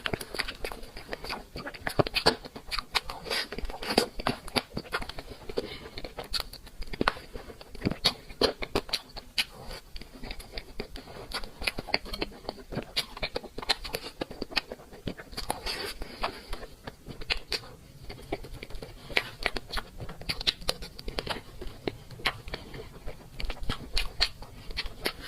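A person eating cake close to the microphone: chewing and mouth sounds made of many small, irregular clicks and scrapes, a few every second.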